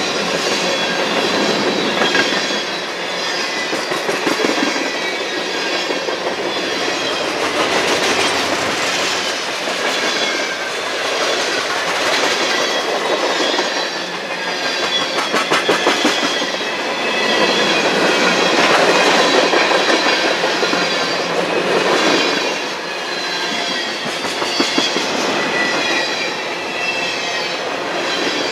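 Freight cars of a CSX manifest train rolling past, with wheels clicking over rail joints in recurring clusters and thin high squealing tones from the wheels.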